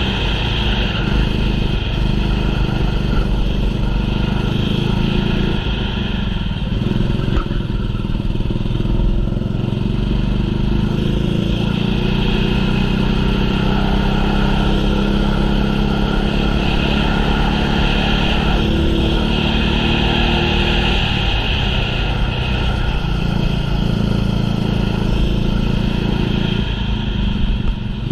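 Small racing kart engine running hard without a break, its pitch rising and falling as it accelerates and eases off.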